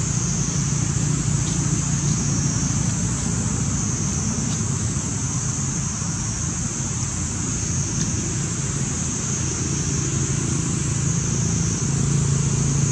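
Steady outdoor background noise: a low, even hum under a constant high-pitched hiss, with a few faint ticks.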